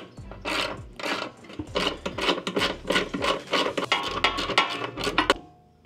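Irregular metal scraping and clanking as a steel factory running board and its mounting bracket are worked loose from the truck's underbody by hand; it stops abruptly near the end.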